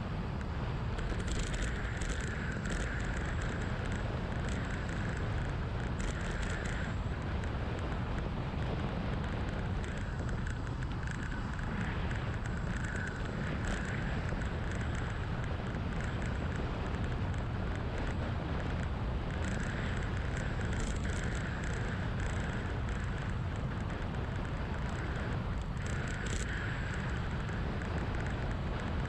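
Wind rushing over a GoPro action camera's microphone on a road bike descending at speed, a steady rumble with a higher hiss that comes and goes every few seconds.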